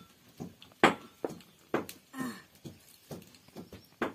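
A metal ladle knocking and scraping against a soot-blackened cooking pot as cooked rice is scooped out, a series of sharp knocks roughly two a second.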